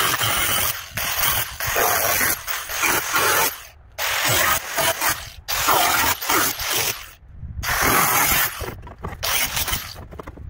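Hand-held angle grinder with its disc on the rusty, painted sheet steel of an old pickup's cowl side, grinding in repeated bursts of about a second with short breaks between. The grinding thins out near the end.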